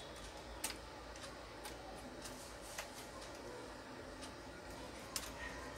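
Light plastic clicks and taps as the parts of a disassembled Canon iP2770 inkjet printer are handled and pressed into place, with three sharper clicks about a second in, near the middle and near the end.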